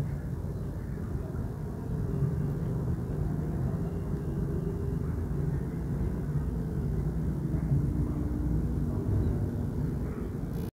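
Steady low rumble with a faint hum running through it.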